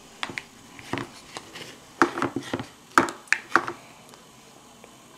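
Toddler's plastic fork and hands tapping and knocking on a plastic high-chair tray: about ten irregular knocks, most of them bunched between two and four seconds in.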